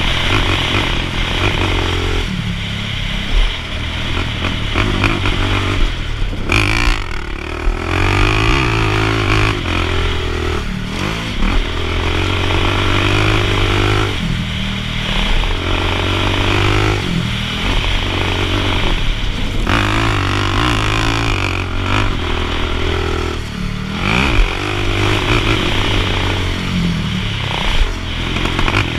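Dirt bike engine being ridden hard around a motocross track, its pitch climbing and dropping every couple of seconds as the throttle is opened and shut through the jumps and corners.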